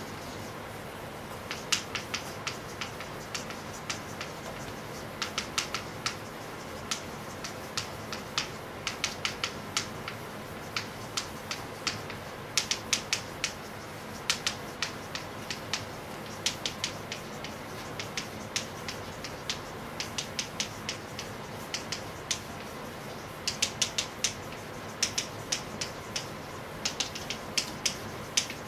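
Chalk tapping and scraping on a blackboard as words are written, in short bursts of quick clicks every second or two over a steady room hum.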